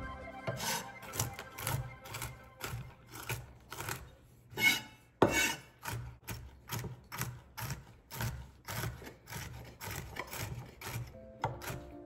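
Large kitchen knife chopping walnuts on a wooden cutting board, short knocks about two to three a second, one sharp louder knock midway. Background music comes back in near the end.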